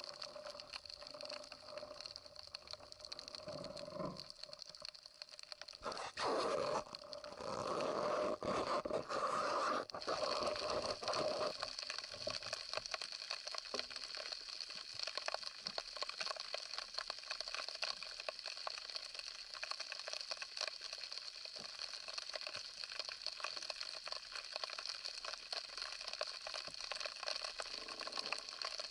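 Underwater ambience picked up through an action camera's waterproof housing: a steady, dense crackling of fine clicks. Louder rushing water noise with a few knocks fills roughly the first dozen seconds, then the crackling goes on alone.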